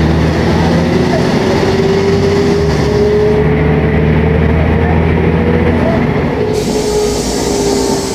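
Mercedes-Benz O500MA articulated bus's diesel engine and drivetrain running under way, heard on board, with a steady whine over the engine drone. A high hiss comes in near the end.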